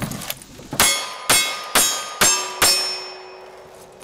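Five single-action revolver shots about half a second apart, each followed by the ring of a steel target being hit. The ring after the last shot hangs on as a steady tone for over a second.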